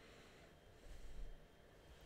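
Near silence: faint room tone, with a brief low rumble about a second in.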